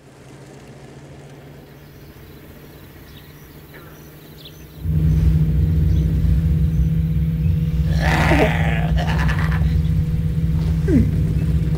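Faint outdoor ambience with a few short chirps, then about five seconds in a vehicle engine comes in loud and runs steadily with a low drone, heard from inside the cabin.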